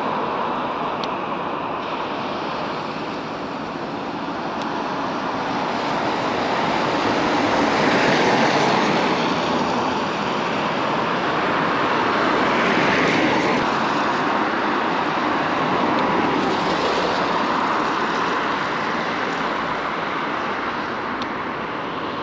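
Steady rushing noise of traffic on a wet road mixed with fast-flowing floodwater, swelling three times as vehicles pass.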